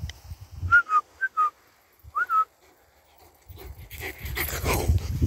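Shepherd dog whining in several short high notes in the first half, then a longer stretch of hissy noise near the end.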